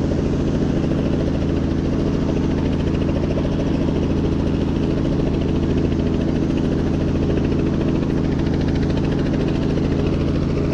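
Helicopter running steadily: a loud, constant engine and rotor drone with a rapid, even chop.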